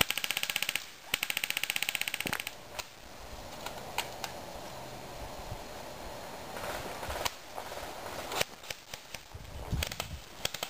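Airsoft gun firing on full auto: two rapid bursts in the first two seconds or so, with a short break between them. Scattered single sharp cracks of shots follow through the rest.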